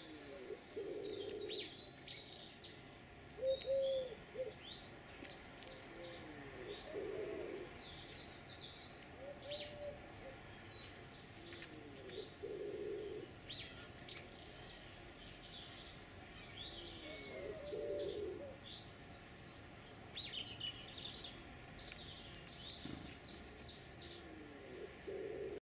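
Garden songbirds chirping and singing in an overlapping run of short high notes and trills, with a pigeon cooing low every few seconds.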